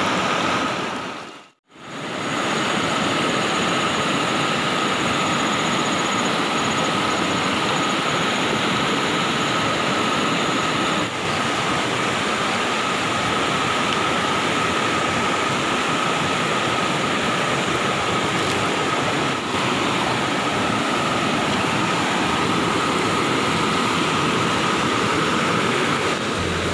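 Rushing water of a rocky river's rapids, a loud steady roar close to the microphone, with a thin steady tone under it. The sound drops out briefly about a second and a half in.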